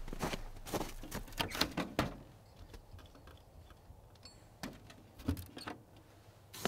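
Keys jingling and a truck camper's entry-door latch and lock clicking as the door is shut and locked: a quick run of small metallic clicks and rattles in the first two seconds, and a few more about five seconds in.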